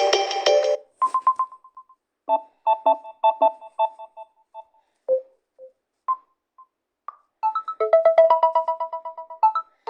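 Samsung Galaxy Tab A8 ringtones played one after another: a fuller tune cuts off just under a second in, followed by short electronic melodies, a brief chime, a plinking run of repeated notes, a few single blips, and a fast run of notes near the end, with silent gaps between them.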